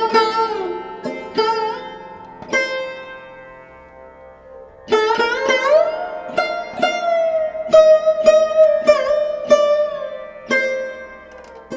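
Background instrumental music: plucked sitar-like notes with bending pitches over a steady drone, thinning out for a moment about three seconds in before the melody picks up again.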